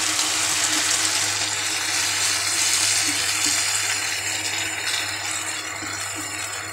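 Onions, peppers and sauce sizzling in a hot pan as cornflour slurry is poured in and stirred with a plastic spatula. The sizzle eases off over the last couple of seconds.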